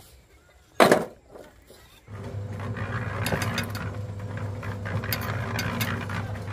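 One sharp knock a little under a second in. From about two seconds a steady motor hum with a low drone starts and runs on, with a few light clicks over it.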